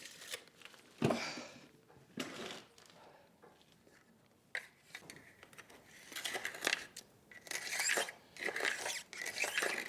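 Handsaw cutting into soft stone wall: a knock about a second in and a couple of single scraping strokes, then from about six seconds a regular run of rasping back-and-forth saw strokes.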